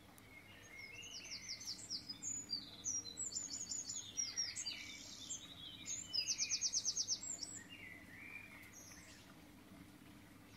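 Songbirds singing: a string of chirps and quick trills, the loudest a fast trill of about eight notes a second some six seconds in, over a faint steady low hum.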